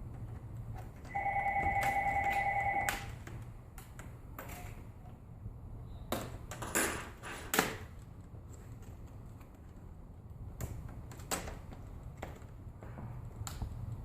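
An electronic telephone ring lasts just under two seconds near the start. Then come scattered sharp clicks and snaps, loudest about seven seconds in, as the plastic bezel clips of a laptop screen are pried loose with a flathead screwdriver.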